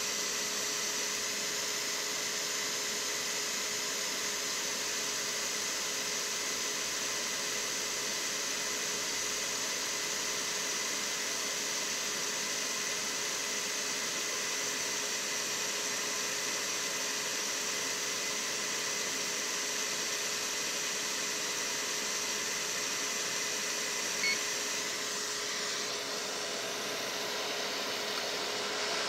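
Hakko FR-810B hot air rework station's blower running steadily: an even rush of air with a steady hum-like tone under it, as the heater warms up at air-flow setting 5. A short beep about 24 seconds in, and the air sound shifts slightly a moment later.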